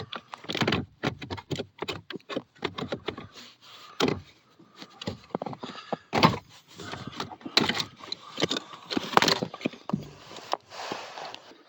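Irregular knocks, clicks and scrapes as a 2019 Chevy Silverado's heater/AC blower motor is wiggled loose and pulled down out of its housing under the dash, with a few sharper knocks along the way.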